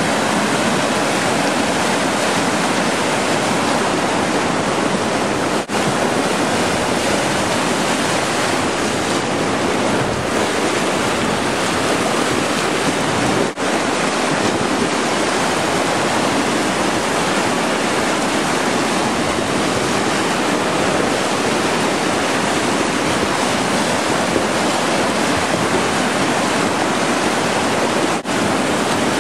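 River rapids: loud, steady rushing whitewater around a raft as it runs a rapid.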